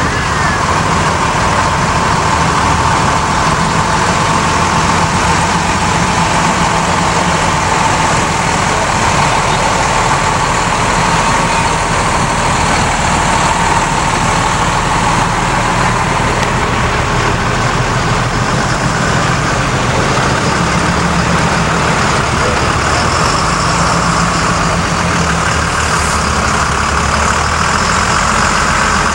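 Diesel engines of fire trucks and an ambulance running as they roll slowly past at close range, with a steady hiss over the engine noise.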